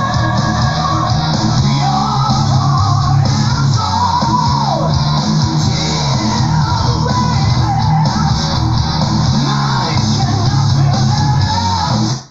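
Power progressive metal recording: guitars, drums and sung vocal lines over a heavy low end, cutting off abruptly at the very end.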